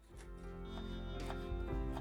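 Instrumental background music with sustained, held notes, swelling in at the start.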